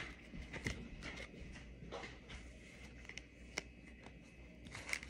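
Glossy trading cards handled and slid against one another: faint scattered clicks and soft rustles, with one sharper tick about three and a half seconds in, over a faint low hum.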